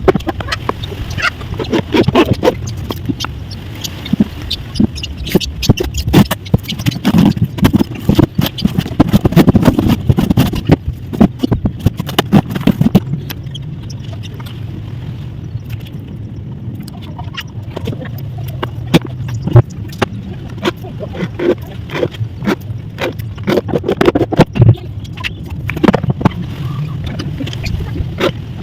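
A running machine with a steady low hum, under many irregular knocks, clicks and scrapes of handling and working material.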